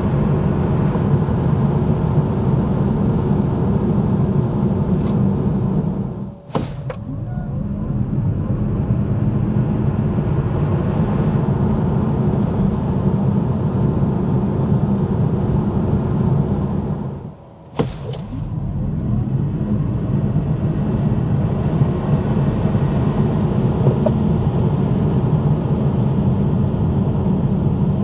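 Steady road and tyre rumble with wind noise inside the cabin of a Tesla Model 3 Long Range Highland at highway speed on winter tyres, with no engine note. The sound dips briefly twice, about six and a half seconds in and again near eighteen seconds.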